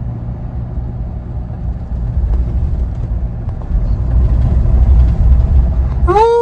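Low, steady rumble of a Mahindra Thar's engine and tyres heard from inside the cabin while driving, growing louder about four seconds in. Near the end a voice breaks into a long, held high call.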